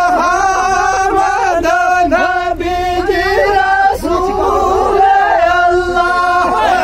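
A group of men singing a Gojri folk song together in loud, drawn-out unison, with long held notes that glide between pitches.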